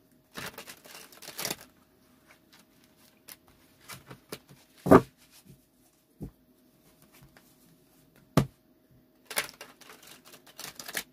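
A deck of tarot cards being shuffled by hand, with rustling and riffling near the start and again near the end. There are a couple of sharp knocks in between, the loudest about five seconds in.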